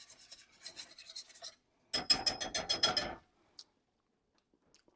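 A utensil stirring a thick cream sauce in a metal pan: light scraping strokes, then about two seconds in roughly a second of fast, loud strokes with a metallic ring against the pan.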